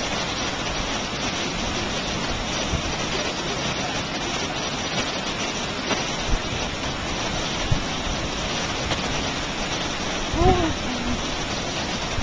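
Steady rushing of falling water from Yosemite Falls, an even hiss-like roar. About ten seconds in there is a brief voice-like sound that rises and falls.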